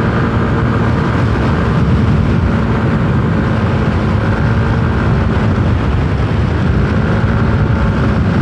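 Yamaha Aerox 155 scooter's single-cylinder engine running at a steady cruising speed while riding, with a steady rush of wind and road noise.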